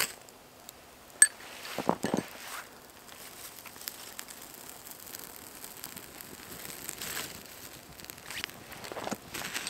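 A small kindling fire catching and crackling, with sharp snaps and the rustle of dry twigs and brush being handled and laid on it, most strongly about two seconds in and again near the end.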